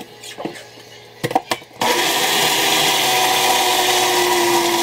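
NutriBullet personal blender: clicks and knocks as the cup is seated and twisted onto the base, then about two seconds in the motor starts with a loud, steady whir. It is puréeing canned chipotle peppers in adobo sauce with lime.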